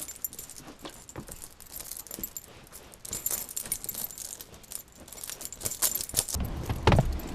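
A bunch of keys jangling with small metallic clicks, busiest in the middle, followed by a low thump near the end.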